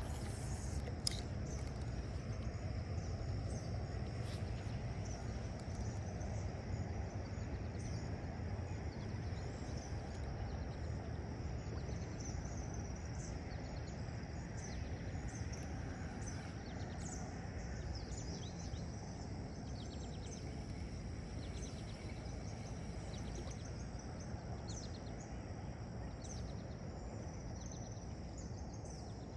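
Steady low outdoor rushing noise, with a steady high insect drone and scattered short bird chirps.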